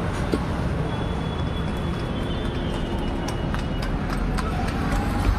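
Street background noise with a run of light, irregular clicks and taps.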